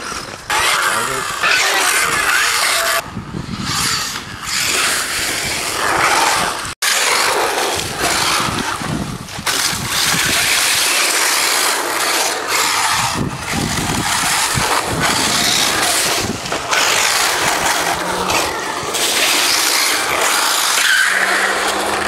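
Brushless electric RC buggies driven hard on a loose, dusty surface, their tyres scrabbling and spraying grit in a dense, continuous hiss that swells and dips as they pass.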